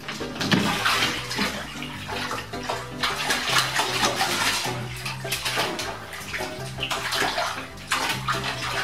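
Bath water splashing and sloshing in repeated bursts as a cat thrashes in a filled bathtub, paddling and clawing at the rim to get out.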